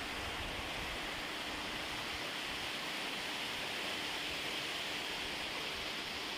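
Steady, even rushing noise with no separate events, strongest in the upper-middle range.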